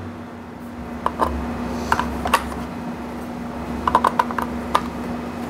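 AAA batteries being pushed into the plastic battery compartment of a digital kitchen scale: scattered light clicks and taps, with a quick cluster of clicks about four seconds in, over a steady low hum.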